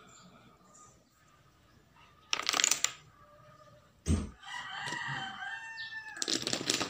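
Wooden dominoes clattering as they topple, in a burst about two seconds in and again near the end, with a single knock between. A rooster crows in the background between the two clatters.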